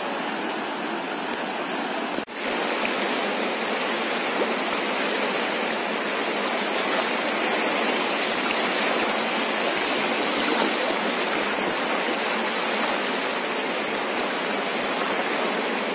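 A swollen, muddy river in flood rushing past as a steady, even noise. It drops out for a moment about two seconds in and comes back slightly louder.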